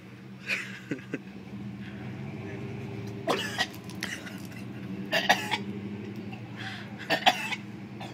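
A man coughing and gagging in a string of short harsh bursts, as his throat rejects a gulp of long-expired chocolate weight-loss shake. The bursts come over a steady low hum.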